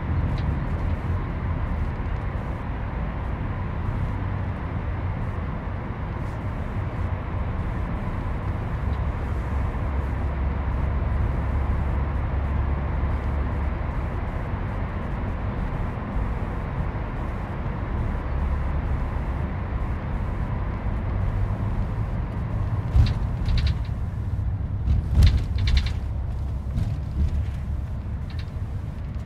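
Steady low rumble of a bus's engine and tyres, heard from inside the cabin while it drives through a road tunnel. A few short clicks or rattles come a little over twenty seconds in.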